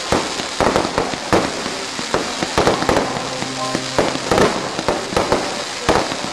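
Aerial fireworks going off in a rapid barrage: sharp bangs several times a second over a continuous crackling hiss. From about three seconds in, a steady pitched tone sounds for about a second alongside them.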